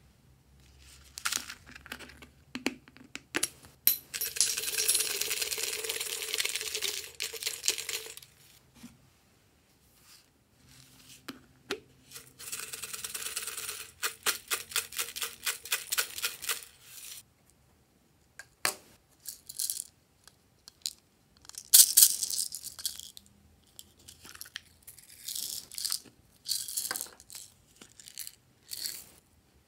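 Glitter, sequins and beads rattling as they are shaken out of small plastic containers onto slime, in two long spells of dense rattling. Later come sharp plastic clicks and snaps from the container lids, the loudest a bit past two-thirds of the way through.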